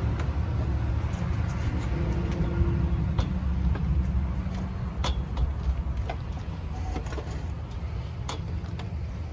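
Scattered light knocks and clicks of 3-inch PVC pipes and wye fittings being handled and turned, over a steady low rumble.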